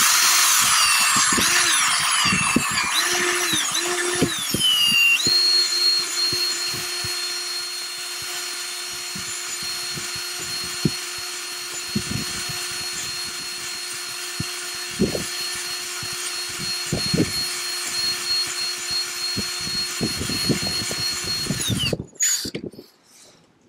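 Ryobi cordless drill spinning an Allen wrench in a deck bolt hole, grinding out wet, rotten balsa core from under the genoa track. The speed rises and falls for the first few seconds, then holds in a steady whine until it stops about a second before the end.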